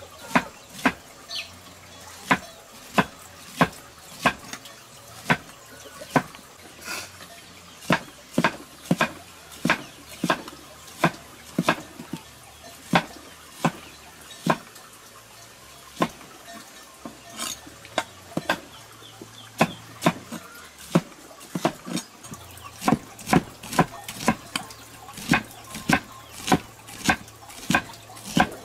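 A steady series of sharp knocks, roughly one every half to three-quarters of a second, like repeated chopping or tapping on a hard surface.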